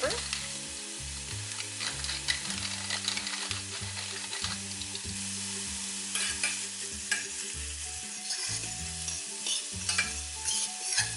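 Minced onion and cumin seeds sautéing in olive oil in a pan: a steady sizzle, with scattered clicks and scrapes of the pan being stirred.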